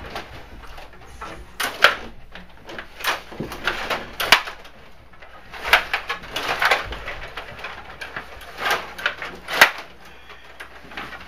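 Stiga table hockey game in play: plastic player rods sliding and twisting, with the figures and puck clacking against each other and the boards in irregular bursts.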